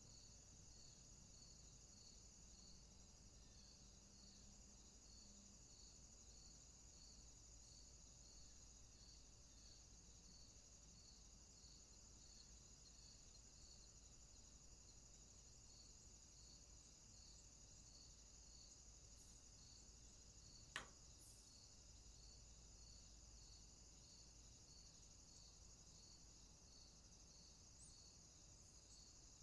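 Very faint insect chorus: a steady high trill with a slower chirp pulsing in it a little more than once a second. A single sharp click about two-thirds of the way through.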